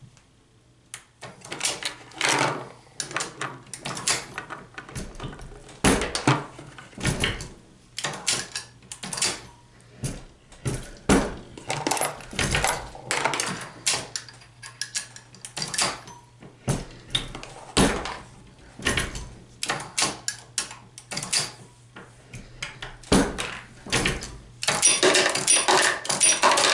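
Hornady Lock-N-Load progressive reloading press worked by hand while .223 brass is sized and deprimed: many sharp metallic clicks and clinks of brass cases and press parts, with a denser rattle near the end.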